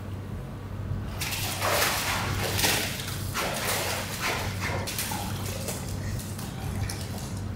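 Water splashing and sloshing at the pool's rocky edge as a polar bear moves in it, in uneven bursts from about a second in, over a steady low hum.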